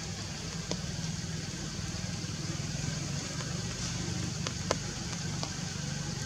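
A low, steady mechanical hum with a handful of sharp clicks, the loudest about three-quarters of the way through.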